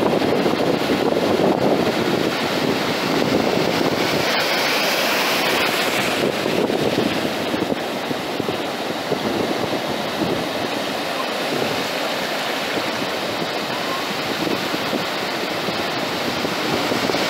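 Baltic Sea surf: small waves breaking and foam washing in over a sandy shore, a steady rushing hiss. The hiss brightens for a couple of seconds about four seconds in.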